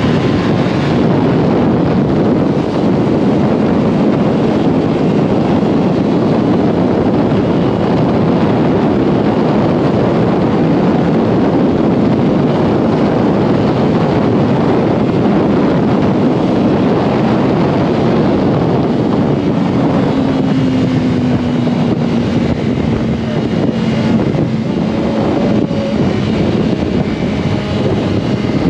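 Yamaha R1 inline-four sport bike riding at speed, its engine buried in heavy wind rush on the microphone. About twenty seconds in, a steady tone comes through and slowly falls in pitch as the revs come down.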